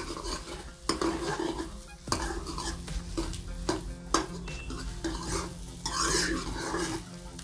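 Steel ladle stirring and scraping spiced potato samosa filling around a kadhai, with a few sharp knocks of the ladle against the pan, over the light sizzle of frying.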